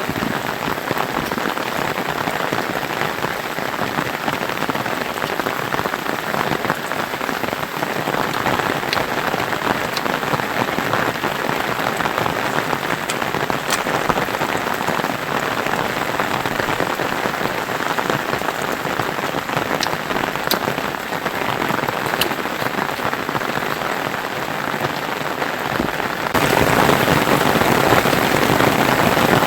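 Steady rain falling, with a few sharp drip ticks; the rain gets louder about 26 seconds in.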